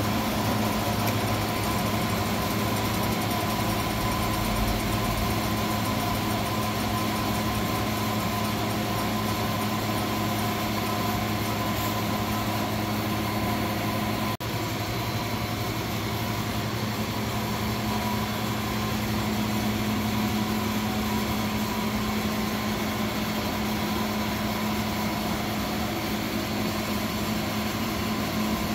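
Leblond Regal Servo Shift engine lathe running, a steady mechanical hum with a few constant tones. The sound drops out for a moment about halfway through, then carries on unchanged.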